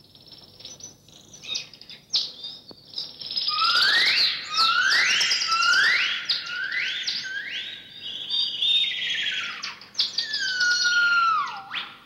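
Jungle bird-call sound effects: a run of rising whistled chirps, a little more than one a second, then a long falling whistle and several shorter falling whistles near the end.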